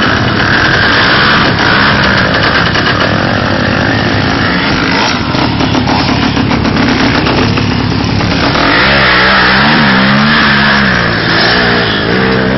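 Quad bike engine revving hard, its pitch rising and falling several times in the second half, as its rear wheels spin in the mud.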